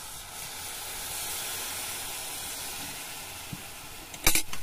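Water poured into a hot steel wok of frying kinema (fermented soybean) curry, hissing and steaming steadily. A sharp knock near the end.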